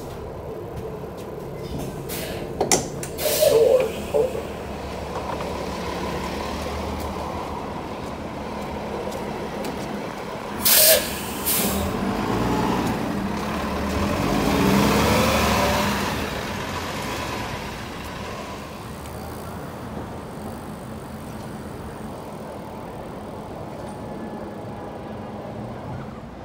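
New Flyer Xcelsior XD40 diesel city bus pulling away from a stop. Short sharp air hisses come a few seconds in and again about ten seconds in, then the engine and transmission whine rises and fades as the bus drives off.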